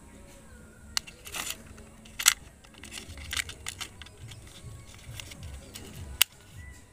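Sharp plastic clicks and knocks as AAA batteries are handled and pressed into the spring-contact battery compartment of a plastic RC helicopter transmitter, with the loudest snaps a little past two seconds in and just after six seconds.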